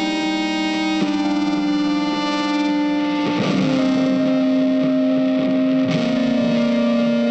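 Background music: distorted electric guitar holding sustained notes, changing note about a second in and again about three and a half seconds in.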